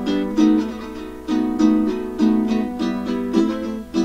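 Caramel CT-100 ukulele strummed in E minor: a steady rhythmic pattern of chords, some strums accented more strongly than others.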